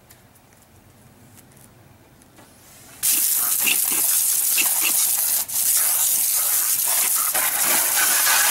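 Water spraying from a PVC undercarriage wash wand on a garden hose against an SUV's side and wheel and the wet pavement. It starts suddenly about three seconds in and runs steadily, with one brief drop about halfway through.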